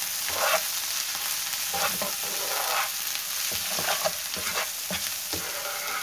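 Chopped onions and ground spices sizzling in hot oil in a non-stick frying pan while a spatula stirs through them, scraping the pan in strokes roughly once a second over the steady sizzle. The masala is being fried to cook out the raw taste of the spices.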